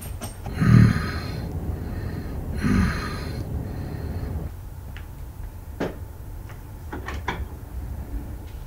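A man snoring twice, about a second and about three seconds in, the first snore the louder, over a low steady hum. After that, a few light clicks and knocks.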